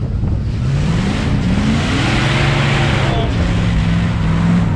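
Dodge Ram pickup's engine revving up as the truck accelerates, its pitch rising for about two seconds, then dropping at a gear change about three seconds in and holding steady.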